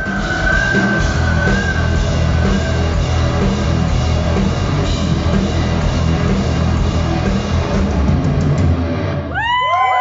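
Live heavy metal band playing the closing bars of a song at full volume, with electric guitar, pounding drums and a long held high note near the start. About nine seconds in the music stops and the crowd cheers and whistles.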